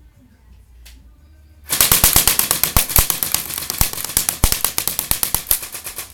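M4A1 carbine airsoft gun firing a long full-auto burst of rapid, even shots lasting about four seconds, starting a little under two seconds in.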